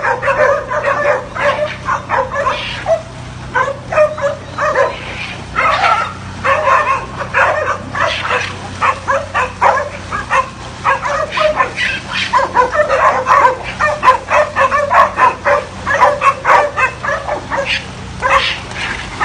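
A pack of dogs barking and yelping fast and overlapping, many voices at once, as they fight otters in shallow water.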